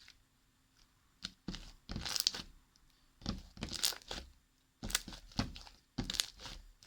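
Fluffy slime made with shaving foam being stretched and squished by hand, giving a handful of short, irregular bursts of sticky tearing noise.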